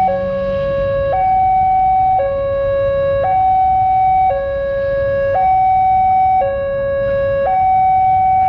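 Railway level-crossing warning alarm sounding its electronic two-tone signal, alternating between a lower and a higher tone about once a second, warning that a train is approaching and the crossing is closed. A low rumble runs underneath.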